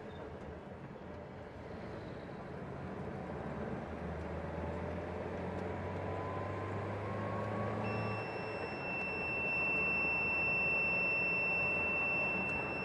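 Car cabin noise from the engine and tyres while driving, growing louder as the car picks up speed. About eight seconds in, the tracker's buzzer starts a steady high-pitched tone: the alarm that the car has exceeded the set speed limit.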